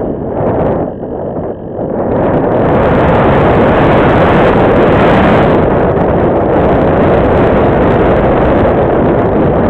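Wind noise on the onboard camera of a Radian Pro RC glider in flight: a steady rush of air over the microphone that grows louder and steadier about two seconds in.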